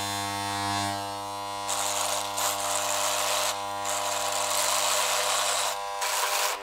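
Electric hair clipper running with a steady buzz. From about two seconds in, a hiss comes and goes over the buzz, typical of the blades being worked through hair.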